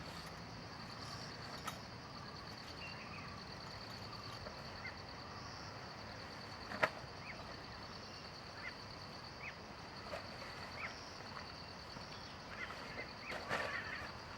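Forest insects droning in one steady high pitch, with scattered short chirps over it. There is a sharp click about seven seconds in, and a short flurry of chirps and knocks near the end.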